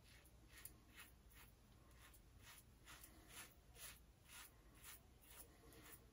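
Faint, short scraping strokes of a Rockwell 6C double-edge safety razor with an Astra Blue blade cutting lathered stubble on the neck, about two strokes a second.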